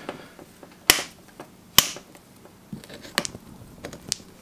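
Bonsai knob cutters biting into a Chinese elm branch stump, taking it down in small nibbles. Each bite is a sharp, crisp snap of wood. The two loudest snaps come about a second apart early on, followed by a few smaller ones.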